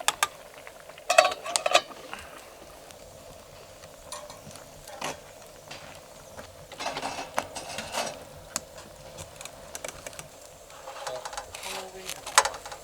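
Camp cookware and utensils clinking and clattering in short, scattered bursts, loudest about a second in and again about seven seconds in, while noodles cook.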